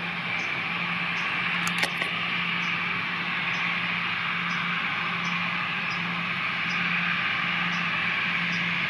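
Jet engines of a four-engined Airbus A340 running steadily as it rolls along the runway: an even rushing whine with a low hum underneath. A single sharp click just under two seconds in.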